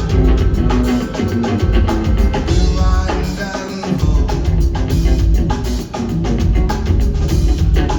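Live rock band playing an instrumental groove: a busy drum kit beat over a heavy bass line. The bass drops out for about a second midway, then comes back in.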